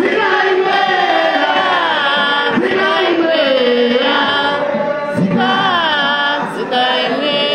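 A man singing or chanting a hymn line into a microphone, amplified through the hall's loudspeakers, his voice gliding between long held notes.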